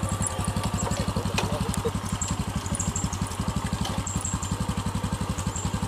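Small engine idling with a rapid, even putter that holds steady throughout.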